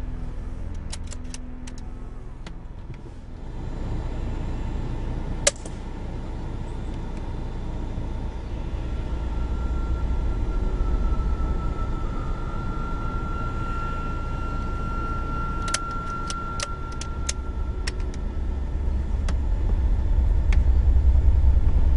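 Vehicle engine running low and steady as it drives across the field, growing louder toward the end, with a single sharp crack about five and a half seconds in and a quick run of light clicks a little after halfway.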